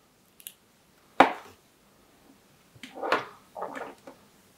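Plastic clicks and knocks from a clamp meter and its test leads being handled and repositioned. There is one sharp click about a second in, then a few softer knocks and rustles near the end.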